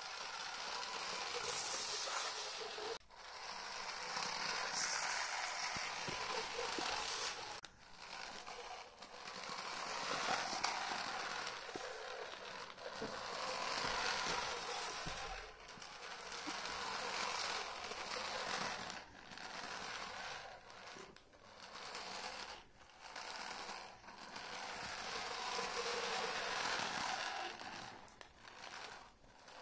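Two-channel remote-control toy car driving forward and back over a carpet mat, its small electric motor and plastic gears whirring. The whirr runs in stretches of a second to a few seconds, broken by short stops each time it halts or changes direction.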